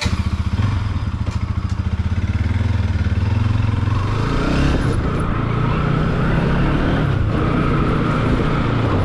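Motorcycle engine running just after starting, a steady low putter that becomes less even from about four seconds in.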